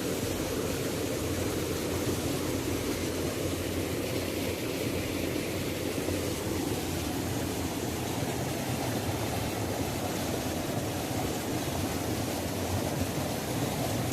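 Waterfall: a steady rush of falling water, heaviest in its low rumble, with no change in level.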